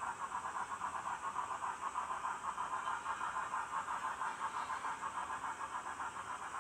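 Steam locomotive chuffing from a model railroad sound system: a steady, breathy, rhythmic exhaust beat of several chuffs a second, as for a train moving slowly.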